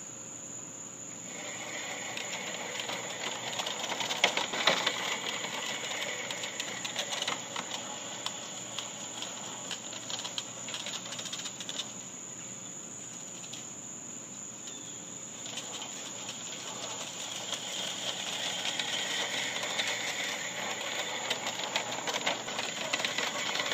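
Fiskars StaySharp Max push reel mower being pushed through overgrown fescue: the spinning reel blades whir and clatter as they cut, with a fast ratcheting click. The cutting starts about a second in and grows louder near the end.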